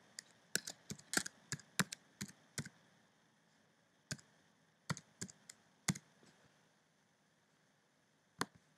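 Keystrokes on a computer keyboard: a quick run of key clicks, then a few slower, spaced presses and a last one near the end.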